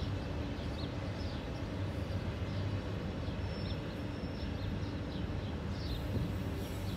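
Freight train autorack cars rolling past with a steady, even low rumble, with short bird chirps over it.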